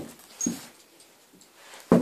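A dog gives short barks, one about half a second in and a louder one near the end.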